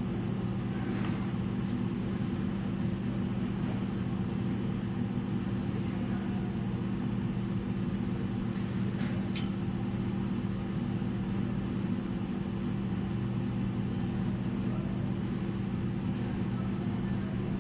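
Steady low mechanical hum that does not change, with a faint hiss above it.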